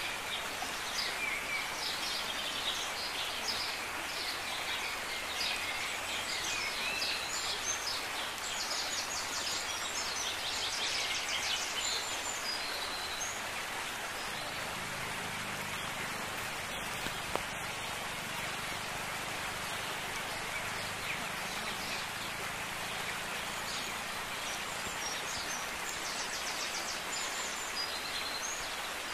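Birds chirping and calling now and then over a steady outdoor hiss, with one brief click about midway.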